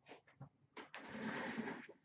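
A few light knocks as a sealed trading-card box is set down on a glass counter, then about a second of scraping, rustling noise as the box and a plastic bin are handled.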